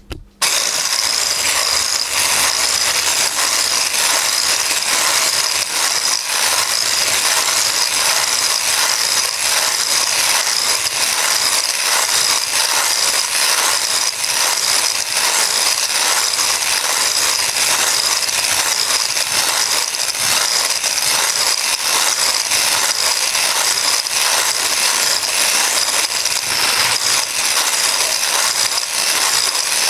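Electric hand whisk running steadily at one speed. The sound starts about half a second in and carries on unbroken.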